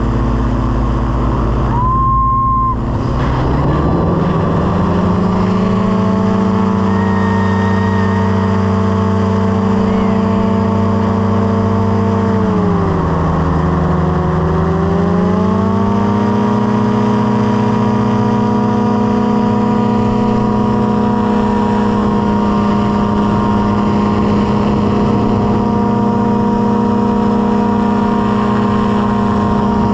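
Light aircraft's engine and propeller running steadily. The engine note rises a few seconds in, dips briefly around the middle, then comes back up and holds.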